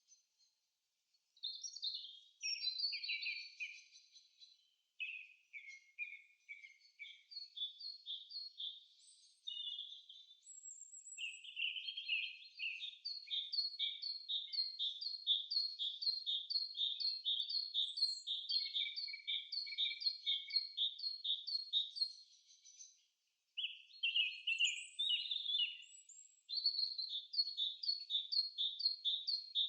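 Bird song: high, varied chirping phrases, then long runs of quick, evenly repeated notes, with a short break about 23 seconds in.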